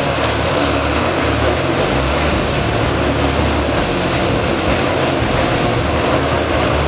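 Motorcycle engines running inside a steel-mesh Globe of Death, a continuous loud din as the bikes circle the sphere.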